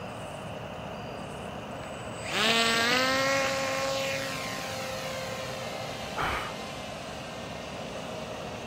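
Small RC model airplane's motor and propeller throttling up for takeoff: a whine that rises quickly in pitch about two seconds in, holds, then fades and drops in pitch as the plane flies away. A short burst of noise about six seconds in.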